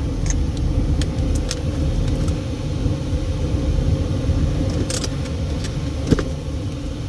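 Car engine running with the air conditioning blowing, heard from inside the cabin as a steady low rumble. A few light clicks and rattles sound over it, with a sharper knock about six seconds in.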